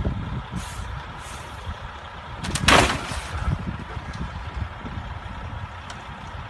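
Traffic rumbling on a snowy road, with a short, loud hiss of a truck's air brakes about two and a half seconds in.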